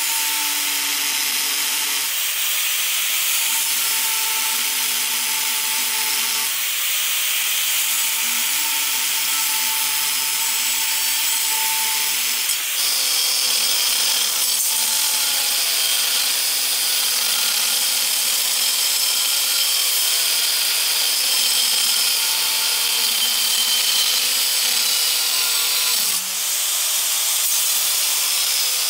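Handheld angle grinder running under load against the steel of a forged knife blank: a steady whine over a harsh grinding hiss, the whine shifting slightly in pitch as the disc is pressed in, easing briefly twice.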